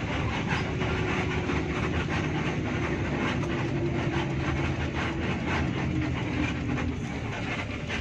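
Hino RK8 R260 coach's diesel engine running with a steady low drone as the bus rolls slowly, heard from inside the cabin, with frequent small rattles and clicks from the body.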